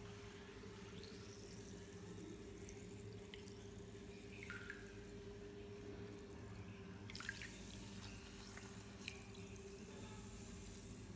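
Faint drips and small trickles of bath water as a hand moves a dissolving bath bomb, a few sharp drips standing out, over a steady low hum.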